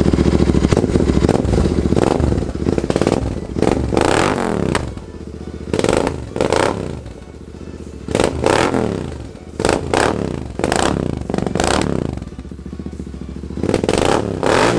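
Royal Enfield Interceptor 650's 648 cc parallel-twin engine running through a pair of black aftermarket slip-on mufflers, revved hard about eight times. Each rev rises and falls in pitch, with echo from the shop walls.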